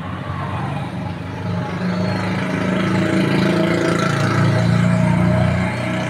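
A motor vehicle's engine running close by, a steady low hum that grows louder about a second and a half in and eases off near the end.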